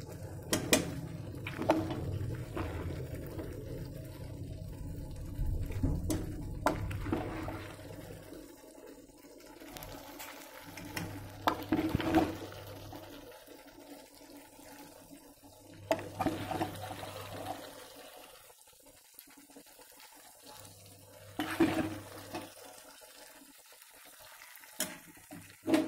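Kitchen handling sounds: several sharp knocks and clatters of a plastic bowl and utensils against the stove and pan, over a steady rushing noise.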